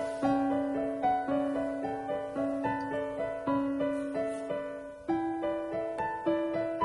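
Background piano music, a steady stream of repeating notes over a held bass note that shifts up about five seconds in.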